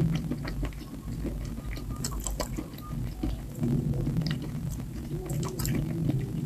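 Close-miked chewing with irregular sharp mouth clicks, over a low steady hum.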